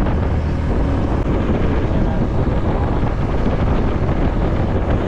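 Steady rush of wind on the microphone from riding a motorcycle, with the motorcycle and road noise beneath it.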